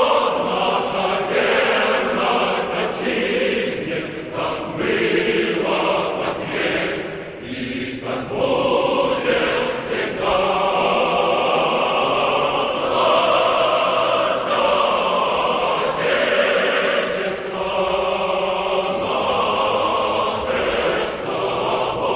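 Music: a choir chanting in sustained voices, the sung notes shifting every second or two.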